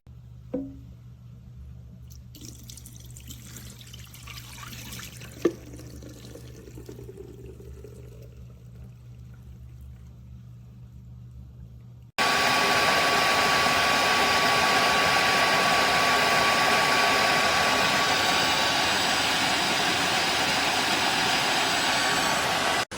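Low steady hum with a few clicks, one sharp about five seconds in. About halfway through, the Tineco Floor ONE S7 PRO wet-dry floor cleaner starts suddenly, its suction motor running loudly with a steady rush and a thin high whine.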